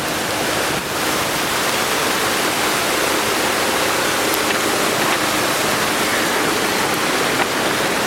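Floodwater rushing steadily, a loud even rush of water.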